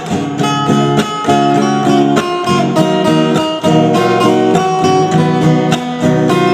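Band music led by a strummed acoustic guitar, chords changing over a steady rhythm.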